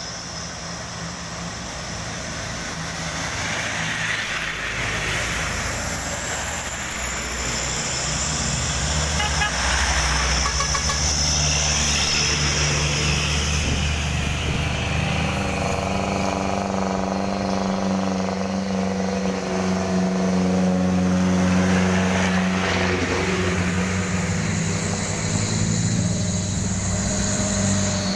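Heavy vehicles and motorbikes drive past one after another, engines running and growing louder as each one passes. In the second half a steady, deeper engine drone builds.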